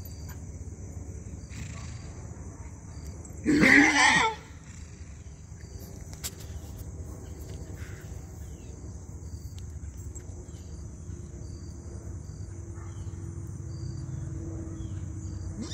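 A horse whinnies once, a loud call under a second long about three and a half seconds in, and starts another at the very end. Insects chirp steadily and high-pitched underneath.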